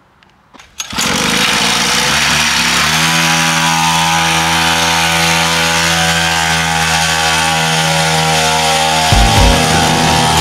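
Small 50 cc two-stroke minimoto engine starting about a second in, then running steadily at a constant pitch. A few low thumps come in near the end.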